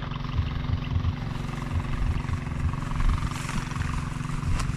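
An engine running steadily: a low, even hum with an irregular low rumble under it.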